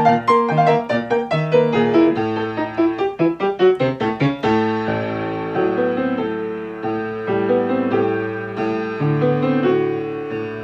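1972 Yamaha G3 grand piano playing a brisk accompaniment. It opens with quick, short, detached notes and chords, and about four seconds in changes to held chords that ring on smoothly.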